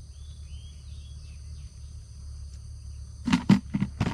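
Steady high-pitched insect buzzing over a low rumble, then, from about three seconds in, a quick run of sharp clicks and knocks.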